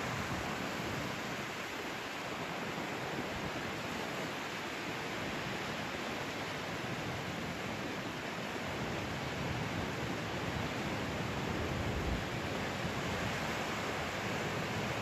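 Surf washing onto a sandy beach, a steady rush of noise with slow swells, the waves somewhat high from a passing typhoon.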